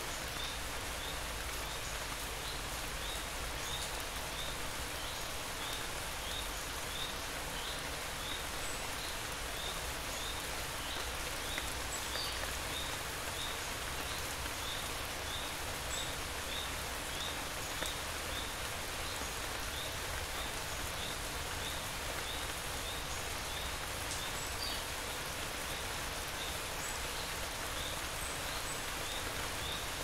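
Steady rain falling, an even patter with no change in strength. Through it runs a faint high chirp repeating about twice a second.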